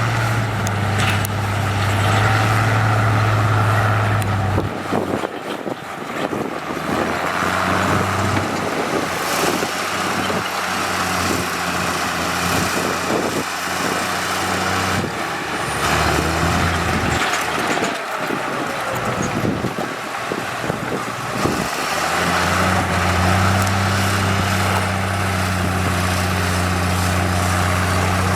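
Heavy diesel engine of construction machinery running with a steady low hum. It falls away about five seconds in and builds up strongly again near the end, over general machinery noise.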